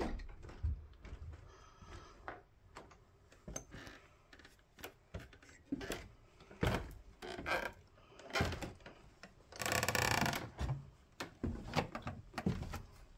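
Footsteps on old wooden floorboards and stairs, with irregular knocks and creaks from the boards. There is a longer, louder rasping sound about ten seconds in.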